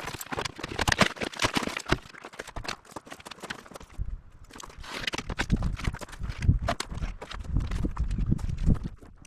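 Rapid, irregular knocking and clattering of hard pieces being handled and set down, with heavier low thumps in the second half.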